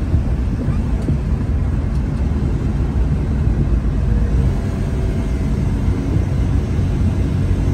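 A 1993 Suzuki Carry mini truck cruising on a paved road, heard from inside the cab: the steady rumble of its 650 cc three-cylinder engine mixed with tyre and road noise.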